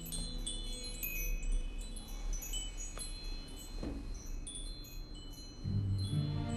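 Wind chimes tinkling, scattered high ringing notes at an uneven pace. Low sustained music notes come in near the end.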